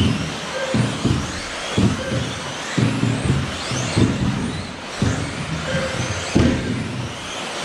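Several 1/10 scale 2WD electric off-road RC buggies racing: motors whining in short rising sweeps as they accelerate, over tyre and drivetrain noise, with a low thump about once a second.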